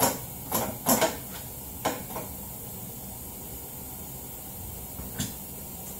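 Tools and metal parts clicking and knocking at the rear axle of a Tao Tao 125cc ATV while the axle is being locked in. There are several sharp clicks in the first two seconds and one more near the end, over a faint hiss.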